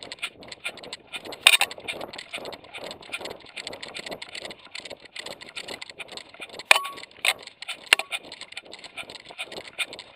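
Jolting handling noise from an action camera strapped to a running dog's vest: rapid, irregular rustling and rattling as fur and harness rub and knock against the camera with each stride, with a few sharper knocks.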